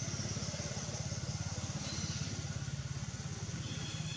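A small engine running steadily, with a fast, even pulse, and a faint high hiss above it.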